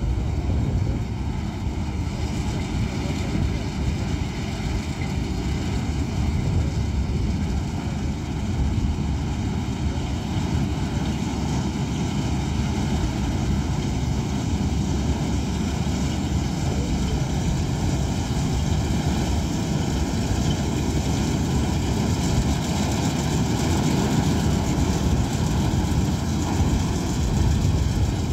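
Self-propelled combine harvester running steadily while cutting soybean, its diesel engine and threshing machinery making a continuous low drone. It grows a little louder near the end as the machine comes closer.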